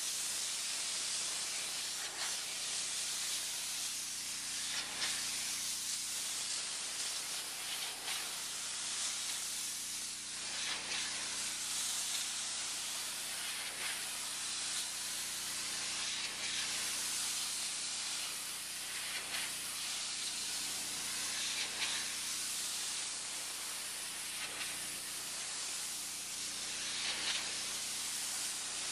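Pressure washer spraying a high-pressure water jet onto a wooden deck to strip mold: a steady loud hiss that swells and eases every few seconds as the jet is swept, over a faint steady hum.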